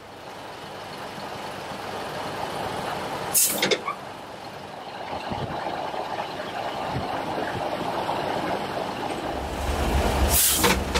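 Boatyard travel lift's engine running steadily, getting louder and deeper about nine seconds in, with two short sharp hisses: one a little over three seconds in and one near the end.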